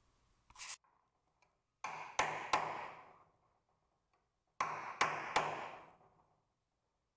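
Hammer striking a pin punch to drive a steel door hinge pin out: two groups of three sharp metallic strikes, about two and a half seconds apart, each ringing briefly. A short knock comes about half a second in.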